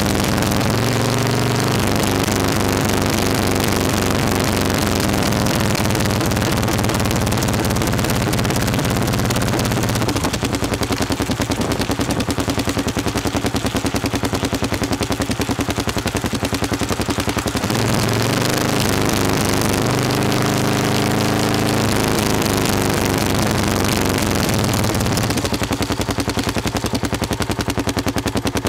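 Motorcycle engine and exhaust under way, close to the microphone, with a fast, popping exhaust beat. The revs drop and pick up again a few times as the throttle is eased and opened.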